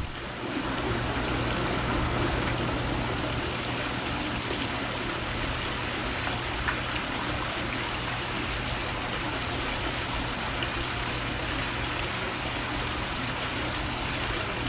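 Steady rushing background noise with a constant low hum underneath, and a faint tick about two-thirds of the way through.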